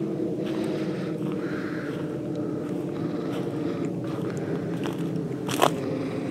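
Footsteps crunching over sandy, pine-needle-covered forest floor at a walking pace, over a steady low hum. A single sharp click near the end is the loudest sound.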